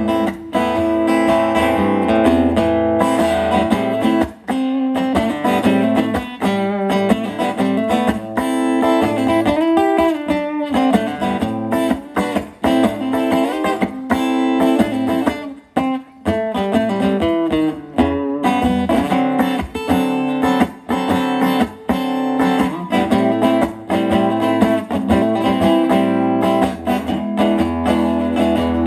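Guitar instrumental break in a live folk song, with quickly picked notes over a steady low bass and no singing.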